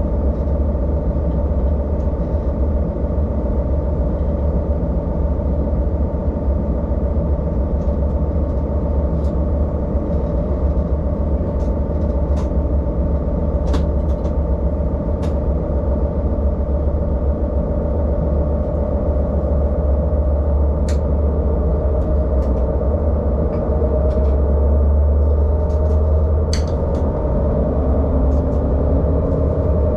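Diesel railcar running along the line, heard from the driver's cab: a steady low drone of engine and running gear, with scattered sharp clicks in the second half.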